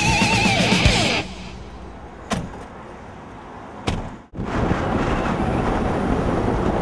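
Heavy metal electric guitar music that cuts off about a second in. Quiet street noise follows with two sharp knocks, and from about halfway a louder steady traffic noise of cars.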